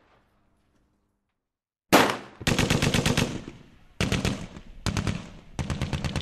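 Bursts of rapid automatic gunfire: a sudden single report about two seconds in, then several rattling bursts of about ten shots a second.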